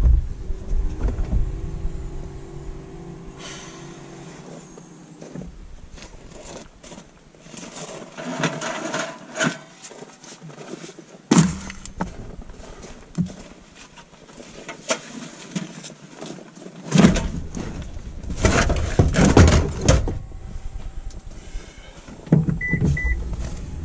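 Fishing gear being loaded into a car's cargo area: scattered knocks, bumps and rustling as a plastic ice sled and other gear are lifted in, busiest in two spells in the middle and later part. A short double electronic beep near the end.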